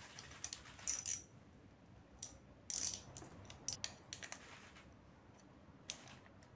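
Hand ratchet and socket loosening cylinder head cover bolts: a few short runs of ratchet clicks and sharp metallic clinks, irregularly spaced, the loudest about a second in and near three seconds.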